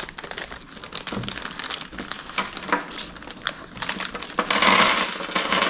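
Clear plastic hardware bag of bolts and nuts crinkling and crackling as hands handle and open it, with a louder, denser stretch of rustling about four and a half seconds in.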